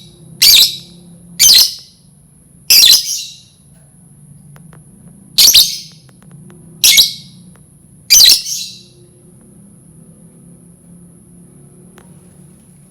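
Lovebird giving six short, shrill screeching calls at uneven intervals, the last about eight seconds in. A faint low hum runs underneath.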